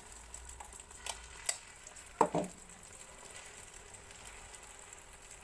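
Omelette batter sizzling faintly on a hot tava as it is spooned on and spread, with a steel spoon clicking a few times and one sharper ringing knock about two seconds in.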